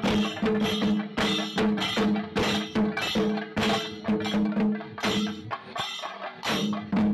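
Festival drumming: sharp drum strokes in a quick, steady beat, several a second, over a held pitched tone.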